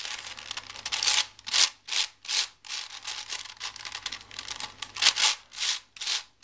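A V-Cube 7 Illusion, a 7x7 plastic twisty puzzle, being scrambled by hand. Its layers are turned in quick succession, each turn a short, scratchy rasp of plastic pieces sliding, about two or three a second.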